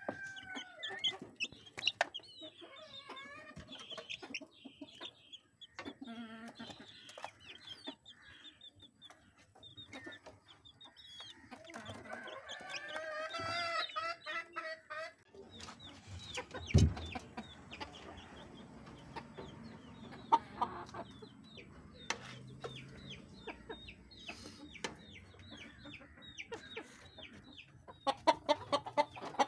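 Young native chickens in a coop making short clucks and peeps, with a longer warbling call about halfway through. A dull thump follows, then many short sharp ticks, and near the end louder clucking from adult chickens starts.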